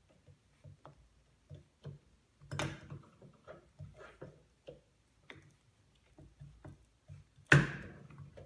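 Hands working a rubber banded V-belt over the grooves of a reduction-drive pulley: scattered light clicks and rubbing taps, with a louder knock about two and a half seconds in and a sharp, loudest knock near the end.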